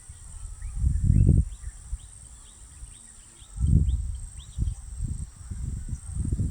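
Low rumbling gusts of wind or handling noise on the microphone, the loudest about a second in and again around four seconds. Between them come a string of faint, short, rising bird chirps over a steady high insect whine.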